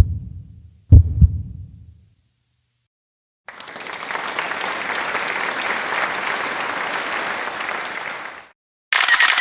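A heartbeat sound effect gives one more low double thud (lub-dub) about a second in. After a short silence comes about five seconds of crowd applause, then a brief bright, high ringing near the end.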